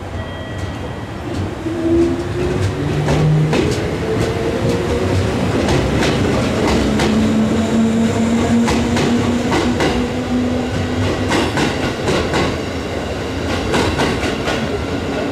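JR Central 211 series electric train pulling away from the platform: its traction motors hum and whine, rising slowly in pitch as it gathers speed, over sharp wheel clicks at rail joints that come thicker in the second half.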